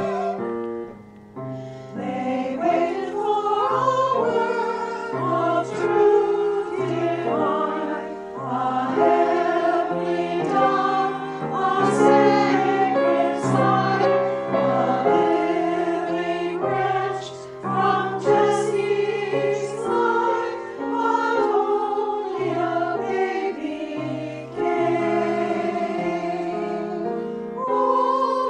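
A choir singing a hymn in harmony, with a short pause about a second in.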